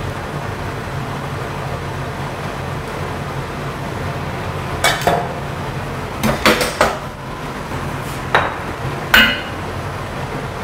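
Kitchenware clinking and knocking, a metal ladle against the wok and bowls, about six sharp knocks from about halfway through, several close together, over a steady background hum.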